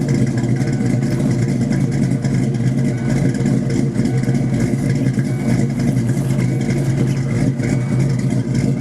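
1994 Mustang 5.0 (302) V8 running steadily at idle, heard through shorty headers, a custom off-road H-pipe and Flowmaster mufflers, with an E303 cam.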